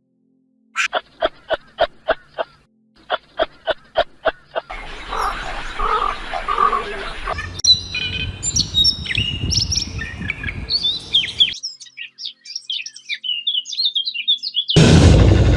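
A run of animal sounds edited back to back. First, two runs of sharp calls repeated about four times a second. Then a noisy stretch, followed by several seconds of high bird chirping and twittering. A loud, noisy sound cuts in near the end.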